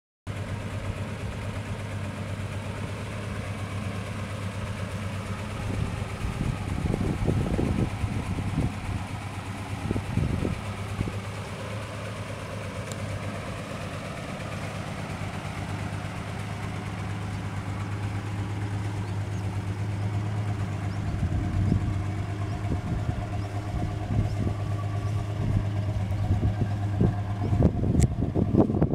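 Ford Falcon XY's 4.1-litre straight-six engine idling steadily.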